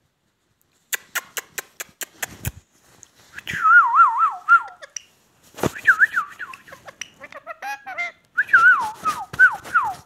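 A quick run of sharp clicks, then an Indian ringneck parakeet chattering in loud whistled warbles whose pitch wobbles quickly up and down, in three bursts with squeaky notes between.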